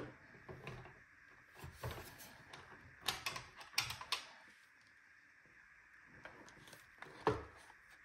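Handling noise from a handheld vacuum cleaner's plastic body as it is turned over and gripped, with the motor off: scattered light clicks and knocks, a quick cluster of sharp clicks a few seconds in and a louder knock near the end.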